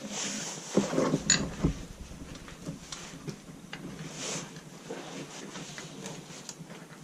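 Small metal knocks and clicks of a bolt and guard being worked into place on a dirt bike's rear suspension linkage, a cluster of louder knocks about a second in, then lighter scattered ticks.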